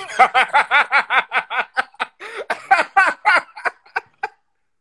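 A person laughing hard in quick repeated bursts, about five a second, trailing off near the end.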